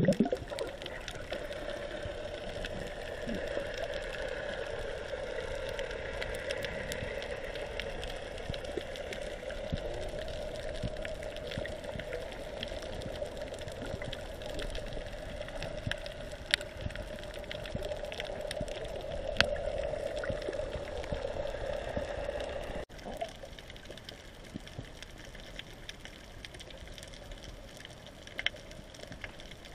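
Underwater ambience picked up by a submerged action camera: a steady muffled wash of water with a few faint sharp clicks. It drops suddenly to a quieter level about three-quarters of the way through.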